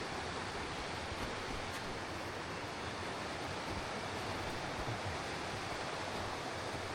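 Steady rush of running water from a stream swollen with winter thaw.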